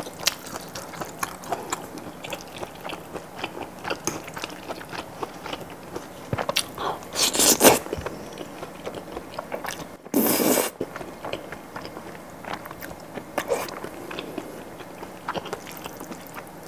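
Close-miked eating of creamy pasta: wet chewing and mouth clicks, with two louder slurps of sauced noodles about halfway through.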